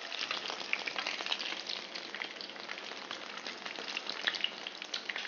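Breaded chicken breast shallow-frying in oil at medium-high heat: a steady sizzle full of small crackles and pops.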